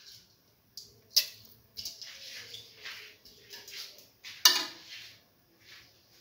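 Metal kitchenware clinking and knocking against a steel pot: two sharp knocks, about a second in and again about four and a half seconds in, with softer handling noises between.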